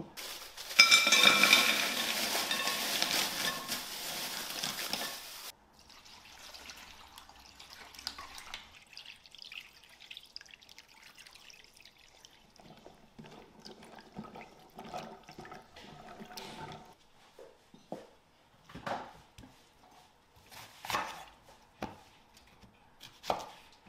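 Kitchen tap running for about five seconds, then shut off abruptly, followed by quiet handling sounds in the kitchen with a few sharp clicks near the end.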